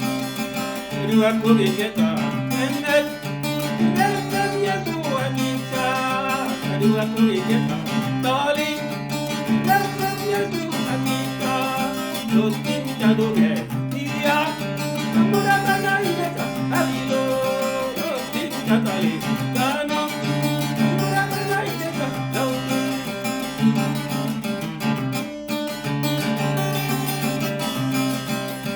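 Music: a strummed acoustic guitar with a voice singing a melody over it.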